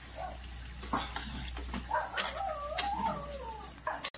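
A drawn-out, wavering animal whine starts about two seconds in and lasts about a second and a half. Under it are a few light clicks and a faint sizzle from the wok of coconut milk on the stove.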